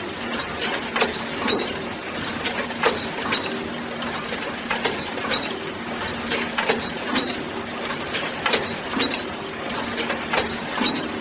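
Box-factory machinery running: a steady hum under irregular mechanical clacks and knocks, one or two a second, some with a short metallic ring.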